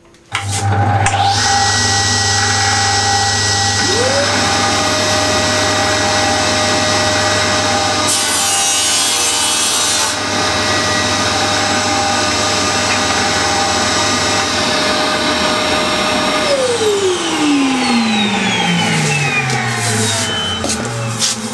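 A dust extractor switches on abruptly and runs steadily; it is started by a reed switch when the saw's blast gate is opened. A few seconds later the Holzmann TS200 table saw starts, its whine rising quickly to full speed. There is a short burst of cutting about eight seconds in, and near the end the saw is switched off and its whine falls away over about five seconds as the blade coasts down, while the extractor keeps running.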